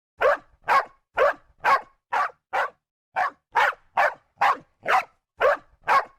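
A dog barking about thirteen times, roughly two barks a second, with a short break about halfway through.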